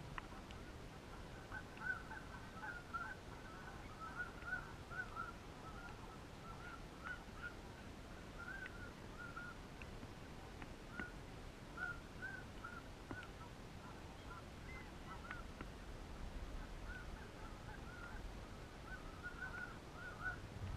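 Geese honking: many short honks, often in quick clusters, keep coming, fairly faint.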